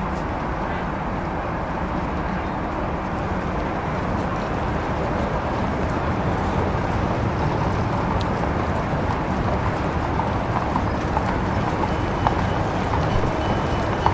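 1930s city street ambience: a dense, steady din of street traffic with horse hooves clip-clopping among motor vehicles. It grows slightly louder over the first few seconds, with scattered small knocks later on.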